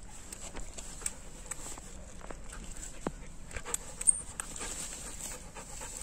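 German Shepherd panting with its tongue out, with scattered short clicks and rustles throughout and one sharp click about four seconds in.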